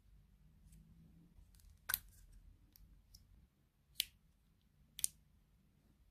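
Sharp clicks from small manicure tools being handled. Three loud ones come about two, four and five seconds in, the last one doubled, with fainter ticks between.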